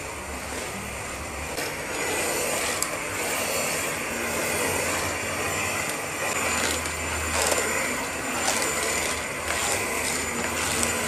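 Cordless stick vacuum cleaner running as it is pushed over a wooden floor: a steady hiss of motor and suction that gets louder about two seconds in, with a few light knocks.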